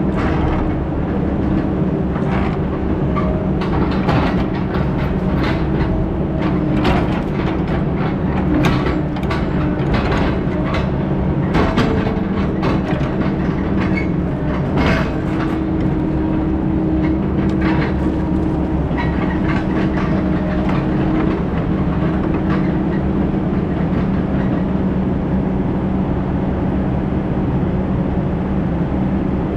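A heavy diesel engine running steadily, with frequent clanks and rattles over roughly the first two-thirds that then thin out.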